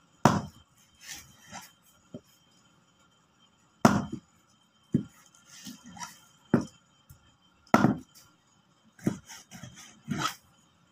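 Heavy knife chopping through a fish on a plastic cutting board: four loud chops, the first just after the start and the others roughly every four seconds, with quieter cutting, knocking and scraping of the blade between them.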